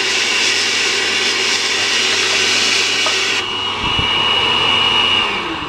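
Oster countertop blender running, blending a chicken marinade of onion, tomato, garlic, spices, oil and vinegar. About three and a half seconds in, the full noise drops away and a high motor whine is left, which fades near the end.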